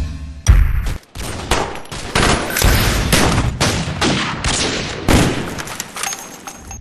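Gunshot sound effects: one loud shot about half a second in, then a rapid string of shots, roughly three a second, each with a ringing tail.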